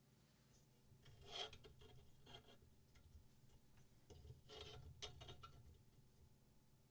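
Faint, irregular scraping and clicks from knife-sharpening gear being worked, with the loudest scrapes about a second and a half in and again about four and a half to five seconds in.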